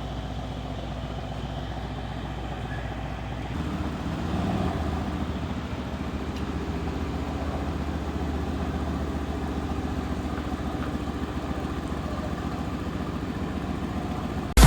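Mercedes-AMG C63's 4.0-litre biturbo V8 running steadily at idle, growing a little louder about three and a half seconds in.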